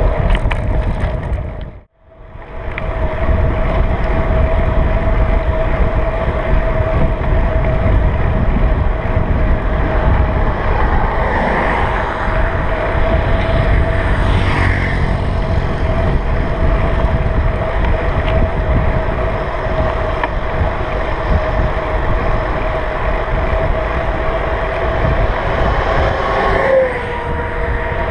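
Wind buffeting the bicycle-mounted camera and the rumble of tyres rolling on the road, a loud steady noise with a faint steady hum running through it. The sound cuts out sharply for a moment about two seconds in.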